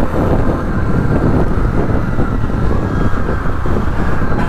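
Wind rushing over the microphone of a Bajaj Pulsar F250 motorcycle on the move, with the engine and road noise running steadily underneath.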